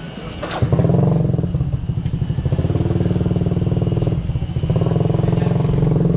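Motorcycle engine running with a fast, even pulse. It comes in loud about half a second in, eases off briefly about four seconds in, then picks up again.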